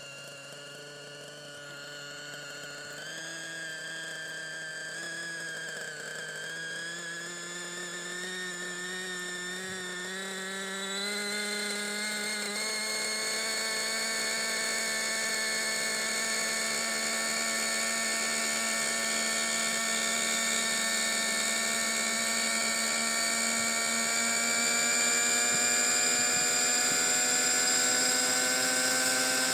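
RC helicopter's small nitro engine running on the ground, climbing slowly in pitch and getting louder as the rotor spools up, with small steps up about three and eleven seconds in.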